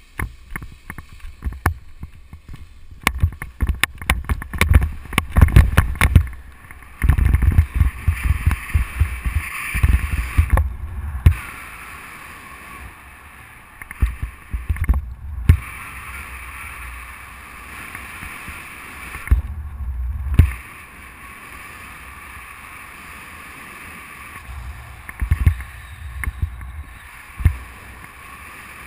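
Wind rushing over a paraglider pilot's camera microphone during launch and flight. Heavy buffeting for about the first ten seconds, then a steady rush of air broken by a few short gusts.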